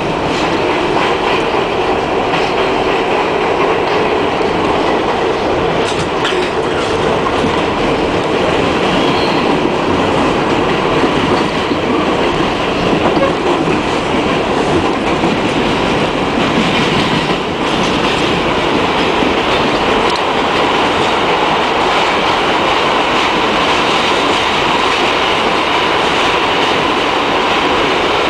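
Bombardier R62A NYC Subway car running at speed through a tunnel, heard from inside the car: a loud, steady rumble of wheels on rail with a few brief clicks over rail joints.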